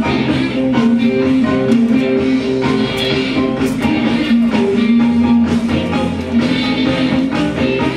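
Background rock music led by guitar, playing at a steady level.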